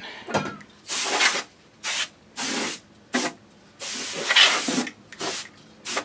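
Spray can hissing in about eight separate bursts of varying length, the longest about a second long a little past the middle.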